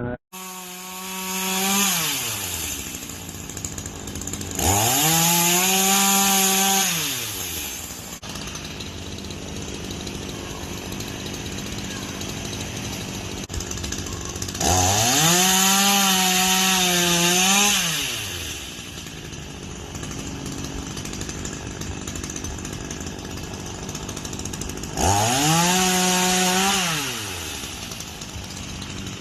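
Ryobi 16-inch two-stroke gas chainsaw idling, then revved up to full speed four times, each run falling back to idle. The first run is short; the other three are held high for about three seconds each.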